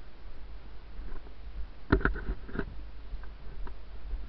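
Steady low rumble of movement and handling noise on a body-worn camera carried while walking across grass, with a short cluster of knocks and clicks about two seconds in.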